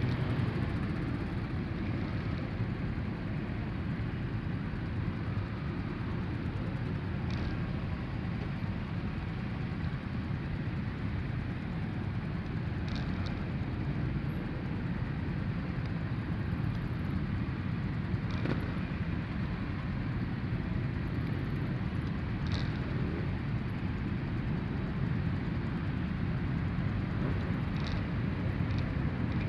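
Many motorcycle engines idling together, a steady low rumble, with a few brief high chirps over it.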